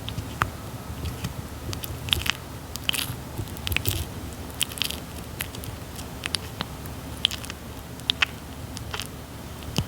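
Red-footed tortoise biting and chewing soft papaya, a string of irregular wet clicks and crunches.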